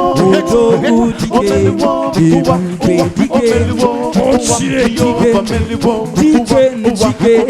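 An a cappella vocal group singing a gospel song in several-part harmony, with a low sung bass line and a quick beat of clicks.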